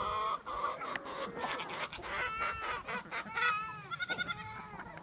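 A flock of chickens clucking and calling while they feed, many short overlapping calls, with quick runs of clucks at the start and again about four seconds in.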